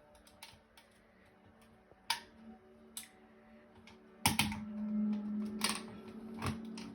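Scattered plastic clicks and knocks of a smoke detector being handled and fitted onto its wall mount, with one louder knock about four seconds in, over a steady low hum.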